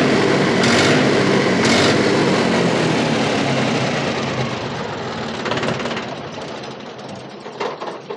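Mahindra B275 DI tractor's three-cylinder diesel engine running hard, its exhaust silencer just cleared of choking carbon. Over the last few seconds the engine sound gradually fades and dies away near the end.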